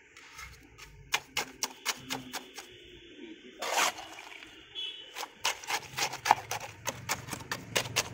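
Steel trowel tapping and scraping wet cement mortar, packing it into a gap against brick: irregular sharp taps in two runs, with one longer scrape near the middle.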